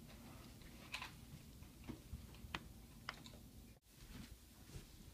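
Rubik's Cube being twisted by hand, giving a few faint, separate plastic clicks, roughly one every half second to a second. There is a brief dropout in the room noise near the end.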